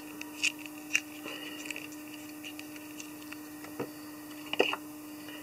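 Fingers and tying thread working craft fur onto a plastic tube in a fly-tying vise: a few small clicks and light rustling, the loudest a little before the end, over a steady hum.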